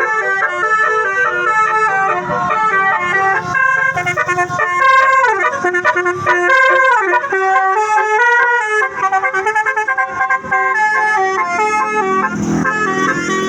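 Bus basuri telolet horn playing a tune: a chain of horn notes stepping quickly up and down, with a downward slide in the middle.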